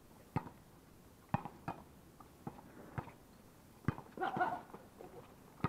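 Sharp slaps of a volleyball being hit, about six scattered through, with players' voices calling out briefly a little after the fourth second.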